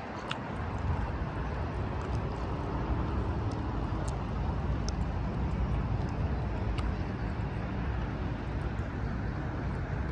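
Outdoor city ambience: a steady low rumble of traffic and wind on the microphone, with a few faint, short high ticks scattered through.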